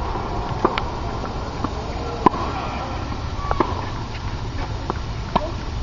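Tennis balls struck by rackets and bouncing on a hard court: a series of sharp pops about a second apart, the loudest a little over two seconds in, over a steady low background noise.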